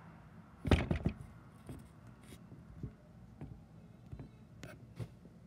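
Handling noise: a loud cluster of thumps about a second in, then scattered light knocks and clicks as the recording phone is touched and moved.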